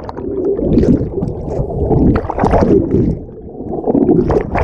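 River water rushing and splashing close to the microphone, in uneven loud surges.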